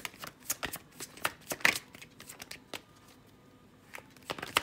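A tarot deck being shuffled by hand: a run of irregular, sharp card slaps and riffles, which pause for about a second and start again near the end.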